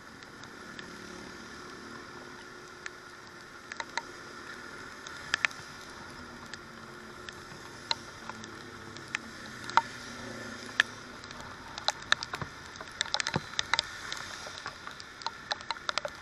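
Raindrops tapping irregularly close to the microphone of a motorcycle-mounted camera, over a steady hiss of riding through rain on a wet road. The taps come thicker in the last few seconds.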